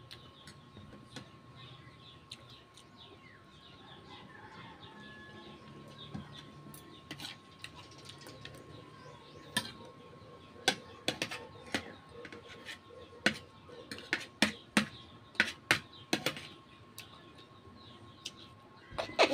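Close-up eating sounds: a quiet first half, then from about halfway through a run of sharp, short clicks and smacks from chewing and from fork and spoon on the plate. Faint bird chirps sound in the background.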